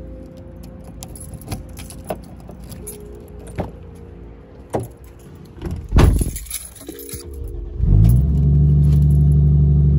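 A bunch of car keys jangling in hand as he walks, with a heavy car-door thud about six seconds in. Near the end, the car's engine cranks, catches with a rising rev and settles into a steady idle.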